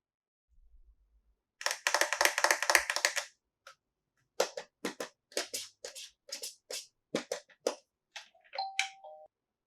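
Plastic toys and packaging being handled: a quick rattling run of crisp clicks, then a string of separate sharp clicks about two a second, and a short beep near the end.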